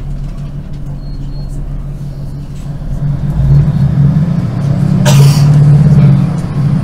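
Class 156 Super Sprinter's underfloor Cummins diesel engine heard from inside the carriage: a steady low drone that grows louder about three seconds in. A brief hiss about five seconds in.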